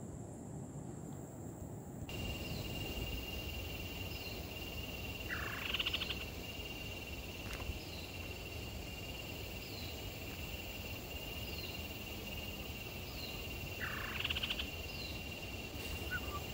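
Lowland rainforest ambience: a steady high insect drone starts suddenly about two seconds in, with short faint chirps about once a second. Twice, about a third of the way in and near the end, a louder rising, rattling animal call sounds.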